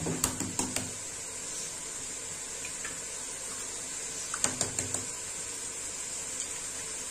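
Cabbage, green peppers, carrots and peas sizzling in oil in a large aluminium pot, a steady hiss. Two short bursts of clicks and scrapes from a wooden spoon against the pot, one at the start and one about four and a half seconds in.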